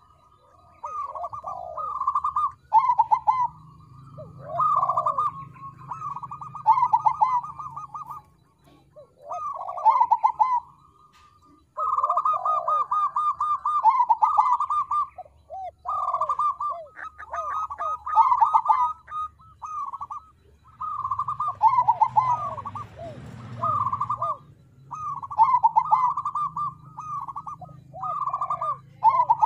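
Crossbred 'crossing' zebra dove (perkutut) cooing: repeated rapid trilling phrases a few seconds long with short pauses between them.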